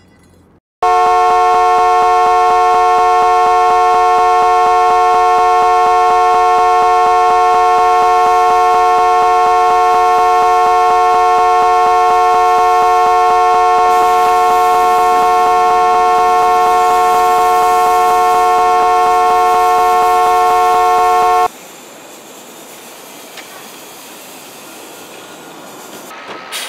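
Car horn sounding one long, unbroken, loud note that starts abruptly about a second in and cuts off suddenly about 21 seconds in, the held horn of an unconscious driver slumped on the wheel after a crash. A quieter steady hiss follows the horn.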